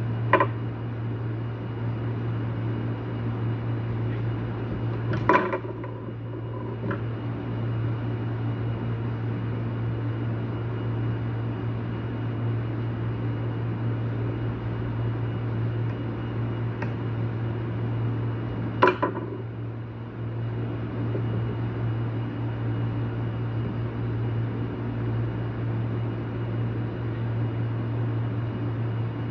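Steady low machine hum with a few sharp clicks and taps of small parts being handled; the loudest clicks come near the start, about five seconds in and about nineteen seconds in.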